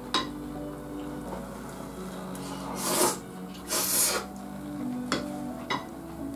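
Eating with a spoon over soft background music: the spoon clicks against the plate a few times, and two short rasping noises come about halfway through.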